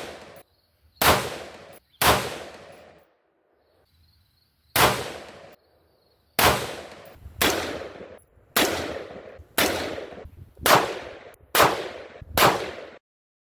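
KelTec BPD bullpup rifle in 5.56 firing ten single shots, each a sharp crack with a short echoing tail. The shots come about a second apart, with a longer pause of nearly three seconds after the third.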